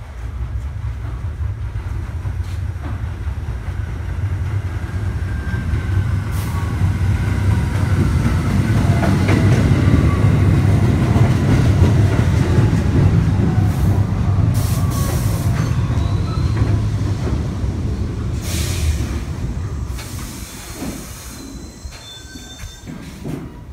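R68 subway train pulling into the station and slowing to a stop: a heavy rumble of wheels on rail builds as the cars pass close and then dies away as it slows. Thin wheel squeals come and go through the middle, with two short bursts of hiss in the second half.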